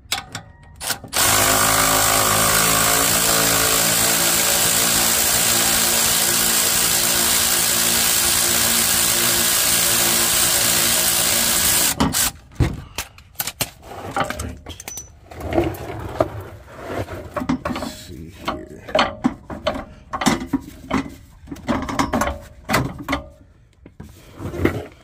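Cordless power ratchet running steadily for about ten seconds as it spins a fastener on the rear sway bar hardware, then stopping suddenly. It is followed by scattered metallic clicks and knocks of tools and parts being handled.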